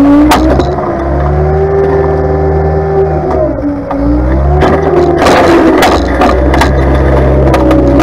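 Tractor engine running, its revs rising, holding and dipping, with scattered sharp knocks and rattles.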